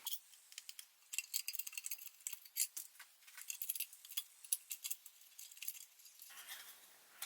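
Faint, irregular small metal clicks and clinks of a 3 mm Allen key working two small screws and spacers into a carbon heat shield.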